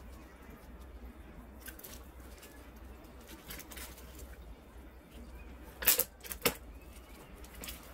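Origami paper being handled and folded: soft crinkling and rustling, with two brief, louder paper crackles about half a second apart near the end.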